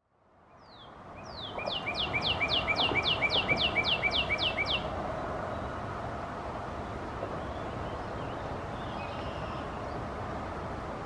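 Male northern cardinal singing one phrase: a quick series of about a dozen clear whistled notes, each sliding down in pitch, some four a second, lasting about three seconds before it stops. A steady low background noise runs underneath.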